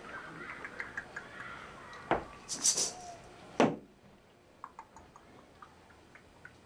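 Small clicks and taps of small instruments and props being handled on a wooden floor. Two sharper knocks come about two and three and a half seconds in, with a brief hissing rustle between them. After that it is low and quiet with faint ticks.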